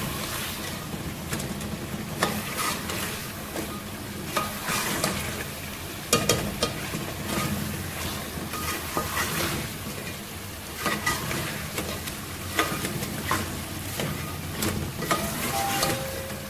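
Mutton pieces frying in oil with onions and spices in a metal pot, sizzling steadily, while a spoon stirs and scrapes against the pot with irregular clicks; a sharper knock comes about six seconds in. This is the bhuna stage, the meat being browned dry in its masala before water goes in.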